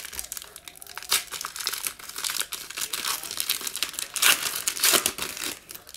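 A 2019-20 Illusions basketball foil card pack being torn open by hand, its wrapper crinkling and crackling, loudest about four to five seconds in.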